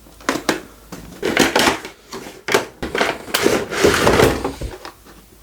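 A boxed collectible being unpacked by hand: cardboard box and packaging scraping, rustling and knocking in an irregular series, with several sharp clicks.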